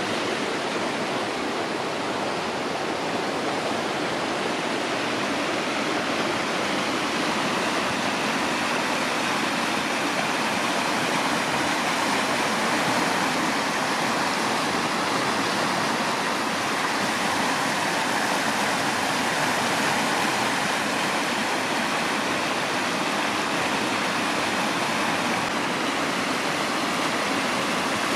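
Steady, unbroken rushing of running water, even in level throughout.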